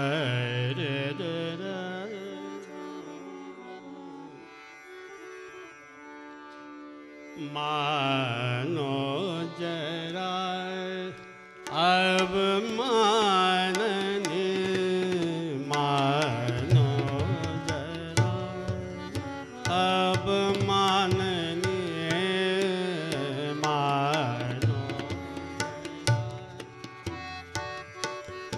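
Indian classical vocal music: a voice sings held notes and ornamented, gliding phrases over a steady tanpura drone. Tabla strokes join about halfway through and keep a rhythm to the end.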